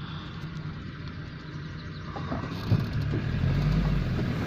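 A vehicle engine idling with a steady low hum. About two seconds in it grows louder and rougher, with a single knock and a heavier low rumble.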